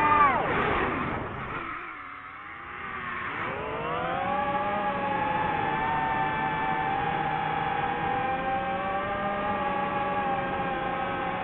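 DJI FPV drone's motors and propellers whining. The pitch falls sharply in the first second and the sound fades low as the throttle is cut. About three and a half seconds in it rises back to a steady, high whine.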